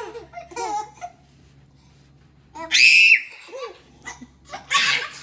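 Twin babies laughing and babbling at each other. A loud, high-pitched squeal comes about three seconds in, and another loud burst of laughter near the end.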